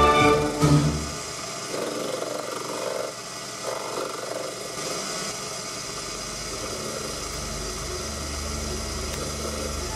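Proxxon PD 250/e mini lathe running steadily while a turning tool faces the end of a chromoly steel part.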